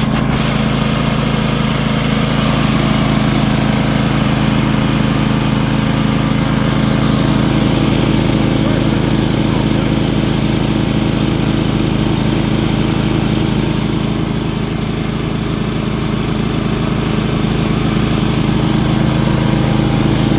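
Kohler Command Pro small engine on an Ingersoll-Rand 30T air compressor running steadily with an even beat. It sounds really good.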